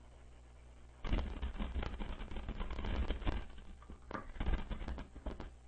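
Dense, irregular clicking and crackling coming through a voice-chat line over a low steady hum. It starts about a second in and thins out near the end.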